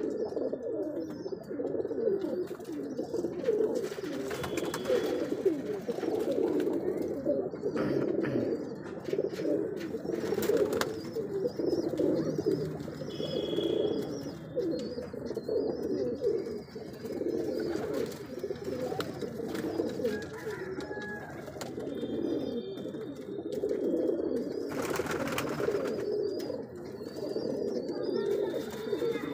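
A flock of domestic pigeons cooing, many overlapping calls making a continuous low sound, with a few short high chirps above it.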